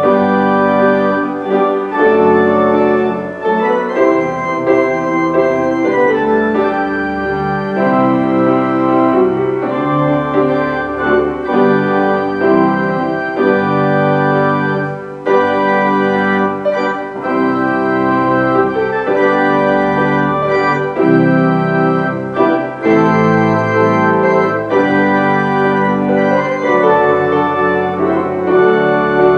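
Church organ playing a slow worship song in held chords, changing every second or two.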